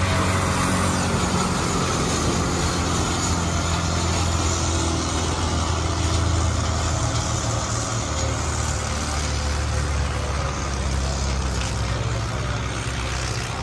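Heavy vehicle engine running steadily, with a steady low pitch.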